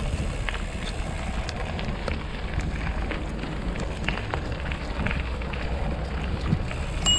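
Gravel bike tyres rolling along a dirt towpath, a steady rumble with small clicks and rattles, with wind on the microphone. Near the end a bicycle bell rings and keeps ringing.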